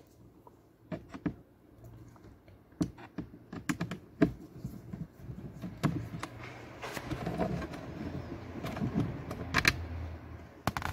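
Irregular clicks, taps and light knocks of hands and a Phillips screwdriver working at the plastic cabin-filter cover behind a car's glovebox, with some rustling handling in between.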